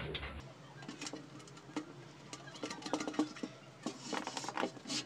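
Scattered light clicks and taps of small screws, nuts and a sheet-metal amplifier cabinet panel being handled as nuts and bolts are fitted.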